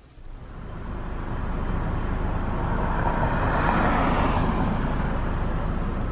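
Street traffic: a car passing by, its noise swelling to a peak about four seconds in and then slowly fading, over a steady low rumble.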